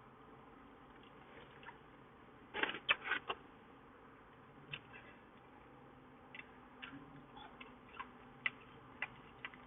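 Quiet eating sounds: irregular soft mouth clicks and chewing, with a short run of louder crackly clicks about two and a half seconds in.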